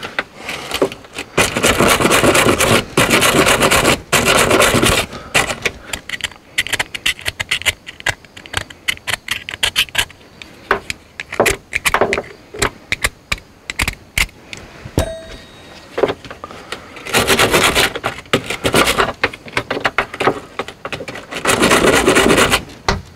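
Hand wire brush scrubbing green corrosion off a copper battery cable end, in bursts of rapid back-and-forth strokes, with sharp clicks and short scrapes of the metal cable end between the bursts.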